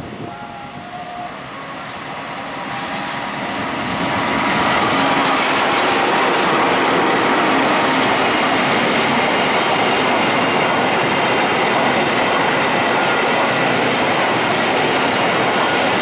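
KAI CC 206 diesel-electric locomotive hauling an empty cement freight train of flat wagons past at close range: the diesel engine running and the wheels rolling on the rails. It grows louder over the first four seconds, then holds steady.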